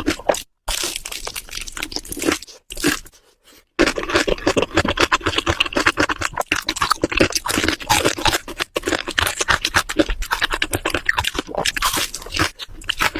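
Crunching and chewing of crispy fried chicken, a rapid run of crunchy bites and chews, broken by two brief silences in the first four seconds.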